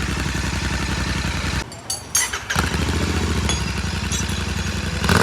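Royal Enfield Continental GT650's 648 cc parallel-twin running steadily at idle through an aftermarket Red Rooster exhaust with its dB killers fitted. The sound drops away briefly just under two seconds in, with a few sharp clicks, then picks up again, and there is a single knock near the end.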